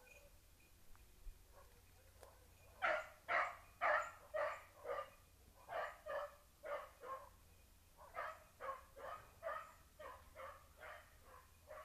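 Young beagle × petit basset griffon vendéen cross hound baying, a run of barks about two a second starting about three seconds in, a brief pause, then a second run: a scent hound giving tongue on a rabbit's trail.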